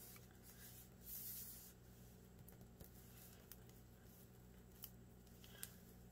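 Near silence over a steady low hum. Hands pressing and smoothing a glued paper pocket onto a journal page make a brief soft swish about a second in, then a few faint taps.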